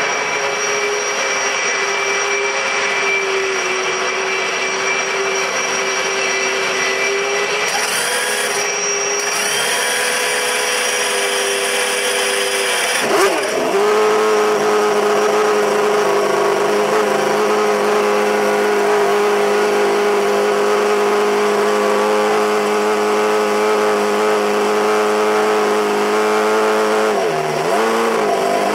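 A steady mechanical whine, then about thirteen seconds in the Champ Car's Mercedes-Benz turbocharged V8 fires and settles into a steady idle, with a short dip and rise in revs near the end.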